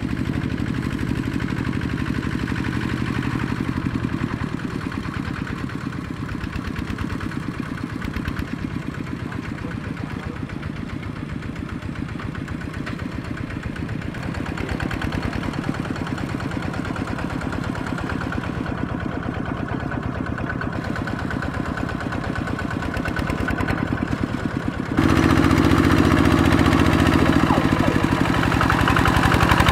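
Kubota RT120 single-cylinder diesel engine of a two-wheel walking tractor running steadily with a fast, even chugging beat. About 25 seconds in it becomes suddenly louder and closer as the tractor works through the flooded paddy.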